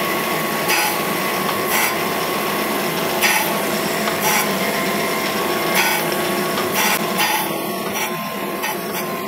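Cam grinder wheel wet-grinding an intake lobe of an FE Ford solid roller camshaft: a steady grinding rasp that swells about once a second as the lobe turns against the wheel, over a steady whine.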